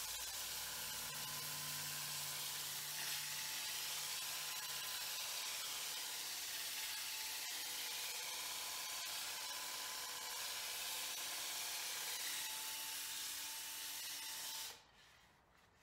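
Walnut dowel spun by a drill and sanded by hand: a steady sanding hiss with the drill running under it, stopping abruptly about a second before the end.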